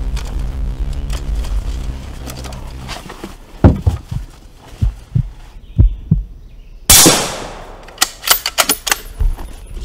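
A low sustained drone, then deep heartbeat-like thumps in pairs about a second apart, then one loud shot from a suppressed .308 bolt-action rifle about seven seconds in, with a long fading tail. A quick run of sharp metallic clicks follows near the end.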